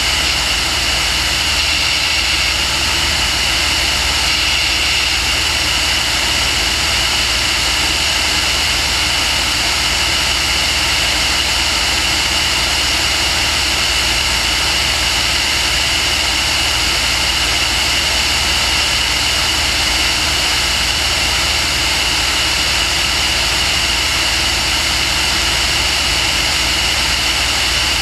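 Aircraft in level flight: a steady, unbroken engine and wind noise with a strong high hum.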